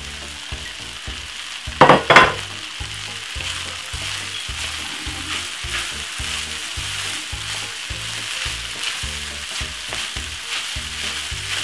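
Chicken fried rice sizzling in a hot frying pan while mixed vegetables are stirred through it with a wooden spoon. A loud clatter comes about two seconds in.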